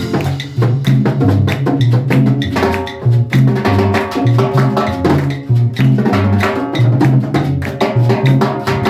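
Latin dance band playing an up-tempo tropical number: a walking bass line under steady, busy percussion and drums.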